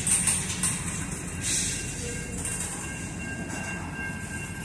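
Covered hopper cars of a freight grain train rolling over a grade crossing with a low rumble, wheels squealing in short bursts near the start and about a second and a half in. A grade-crossing warning bell rings steadily.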